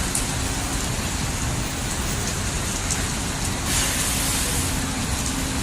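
Typhoon wind and rain mixed with road traffic: a steady rushing noise with a faint engine hum under it. The hiss swells briefly about four seconds in.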